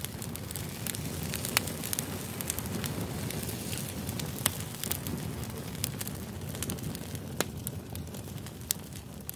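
Steady crackling noise like a burning fire, with sharp pops scattered through it, and fading slightly near the end.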